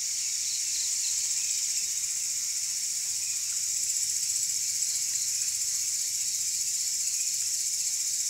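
Night insects, crickets, trilling in a steady high-pitched chorus with a faint regular pulsing.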